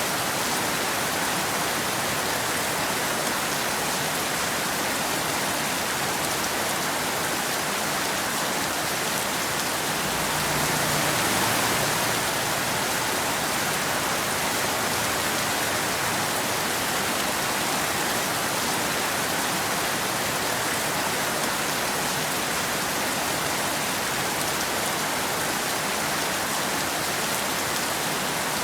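Steady, even rain falling on a wet road and forest, a dense hiss of drops with no thunder; it swells slightly about ten seconds in.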